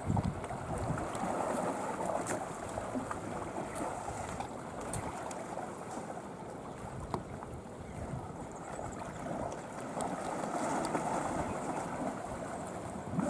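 Shallow lake water lapping and sloshing around wading Asian elephants, with light wind on the microphone and a few faint ticks.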